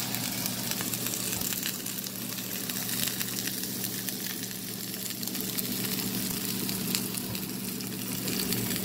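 A steak searing in a hot oiled pan: a steady crackling sizzle full of tiny spits and pops. Underneath it the kitchen exhaust fan hums steadily.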